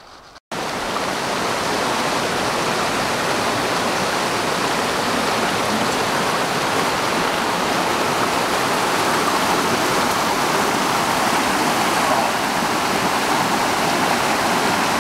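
Mountain stream rushing over boulders: a loud, steady rush of water that starts abruptly about half a second in.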